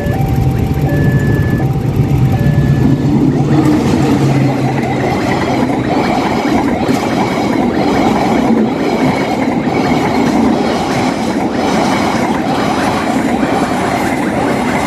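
A level-crossing alarm sounds its alternating two-tone signal over a low hum. About three and a half seconds in, the KA Taksaka passenger train passes close by: a loud rumble of coaches with wheel clacks over the rail joints about once a second.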